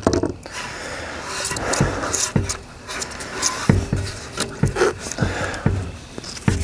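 Handling noise from camo duct tape being cut, pressed and rubbed down over spray foam on a metal climber treestand frame. There is a rustling of tape and hands, with scattered light knocks and scrapes on the frame and table.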